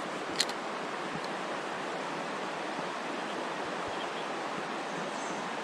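Creek water running steadily, an even rushing wash, with a single small click about half a second in.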